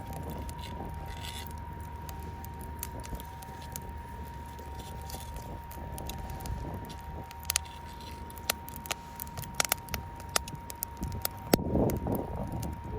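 Wood campfire crackling, with sharp pops that come thicker and louder in the second half over a low steady rush. Underneath runs a faint, steady 936 Hz sine tone from a tone generator.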